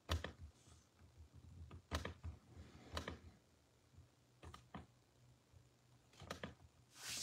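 Faint clicks of a Dell laptop's touchpad, single clicks and quick pairs scattered a second or so apart.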